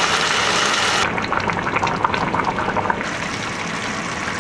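Thick curry simmering on the stove: a steady hiss, then about two seconds of quick bubbling pops, then a steady hiss again.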